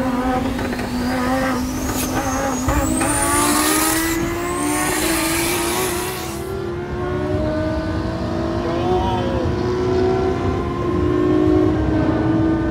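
Lamborghini Huracán's naturally aspirated V10 with a modified loud exhaust, heard from inside the cabin, pulling hard in a high gear, its pitch climbing slowly as speed builds. A high whine rises twice in the first half.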